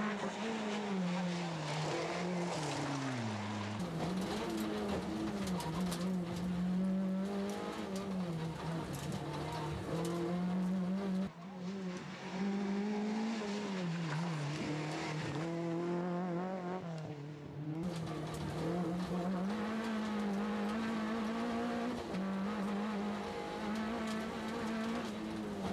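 Talbot Samba F2000 rally car's engine at full throttle, its pitch climbing and dropping again and again through gear changes and lifts into corners. The sound changes abruptly a few times where separate passes are spliced together.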